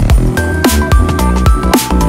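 Background music with heavy bass and a steady drum beat.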